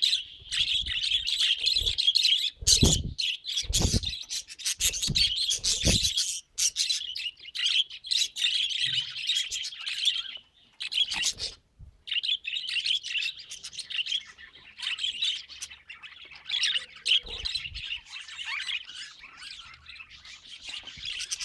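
Pet budgerigar chattering and warbling, a dense run of fast chirps with a short break about halfway through. Several dull knocks sound under the chatter in the first few seconds.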